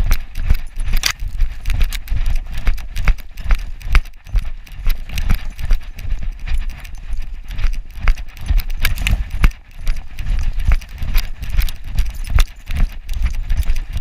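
A dog running through snow, heard from a camera strapped to its back: a rhythmic thumping of its bounding strides jolting the mount, with sharp crunches and clicks and a constant rubbing of fur and wind on the microphone.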